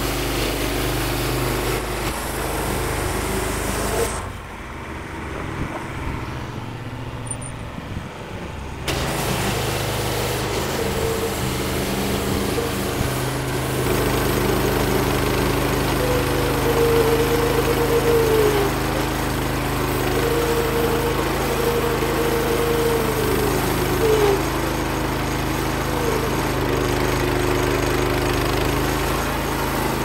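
Kohler engine of a Woodland Mills HM126 band sawmill running under load as the blade is pushed through a live oak log. About four seconds in the sound falls away and thins out for roughly five seconds before picking back up, and in the second half a wavering squeal comes and goes over the engine. The cut is struggling in a way the owner cannot explain; he suspects the engine is not reaching its full 3600 RPM.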